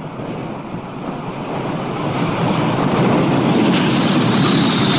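Jet aircraft coming in to land, its engine noise growing steadily louder for the first few seconds and then holding, with a high whine that falls slightly in pitch near the end.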